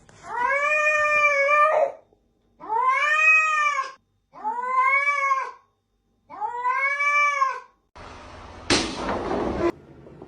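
A cat yowling: four long, drawn-out meows, each rising and then falling in pitch, with short silent gaps between them. Near the end comes a loud burst of noise lasting about a second.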